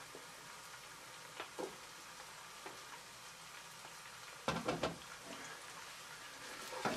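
Chopped onions and whole garlic cloves sizzling steadily in hot oil in a pot, with a few small pops. About four and a half seconds in there is a short burst of louder crackling and knocks, and near the end the sizzling grows louder and busier as stirring begins.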